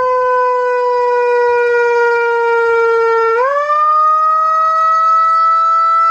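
Turkish ambulance siren sound effect: a steady, buzzy siren tone that sinks slowly in pitch, then swoops up quickly a little past halfway and holds there, creeping slightly higher.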